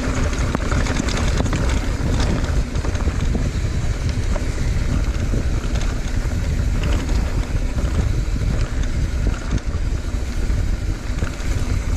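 Wind buffeting the microphone during a fast mountain-bike descent, over a steady low rumble with scattered clicks and rattles.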